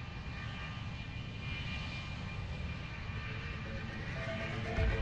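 Jet aircraft engine running, a steady high whine over a low rumble that grows slowly louder; a few sustained musical notes come in near the end.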